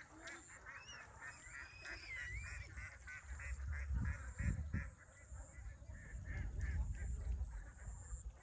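Domestic waterfowl calling: a few longer rising and falling calls, then a quick run of short calls at about four to five a second that fades out near the end, with a low rumble underneath.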